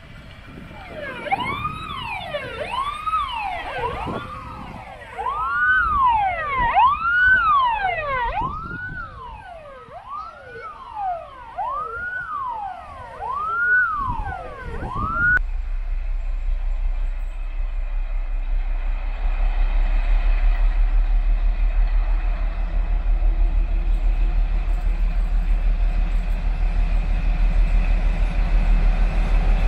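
Siren of a vintage police car with a blue roof light, rising and falling in pitch about once a second. It cuts off abruptly about halfway through. Then comes the steady low drone of an approaching T435 diesel locomotive, which grows louder and then holds.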